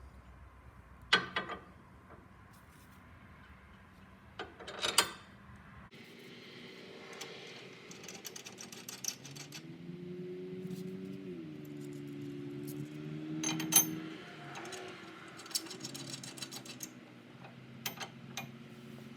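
Hand tools working steel bracket bolts: sharp metal knocks and clinks, and two runs of rapid ratchet-wrench clicking as the bolts are run down. A steady low drone runs under the middle stretch, dipping in pitch once.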